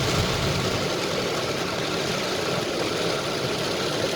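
A vehicle running, with steady engine and road noise.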